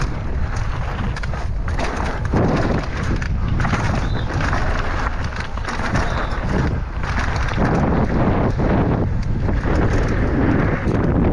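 Downhill mountain bike descending a rough track: constant wind buffeting on the on-board camera's microphone, with tyre rumble and frequent knocks and rattles from the bike.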